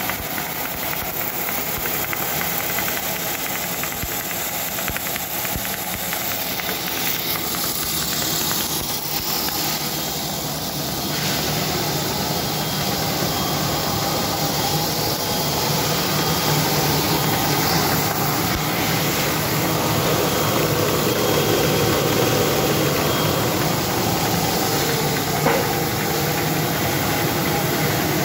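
DGM Smartfold 800SL Classic folder-gluer running at production speed, its belts and rollers carrying carton sleeves through: a steady, dense mechanical whir with a faint hiss. It gets a little louder about halfway through, and there is one sharp click near the end.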